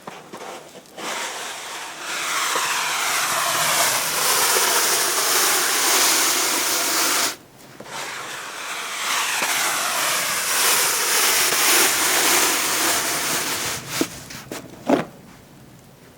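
Snow shovel being pushed through snow in two long scraping strokes of about six seconds each, then a few sharp knocks near the end.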